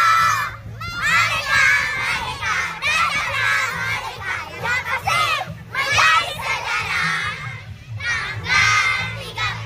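A crowd of schoolchildren shouting and cheering all at once, many high voices overlapping in loud waves with brief lulls.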